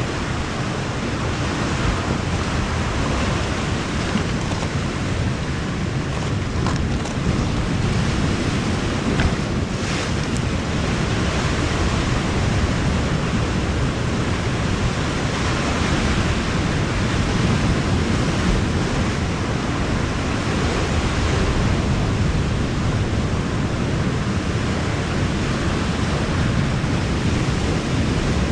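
Steady rush of sea surf on a rocky shore, mixed with wind noise on the microphone.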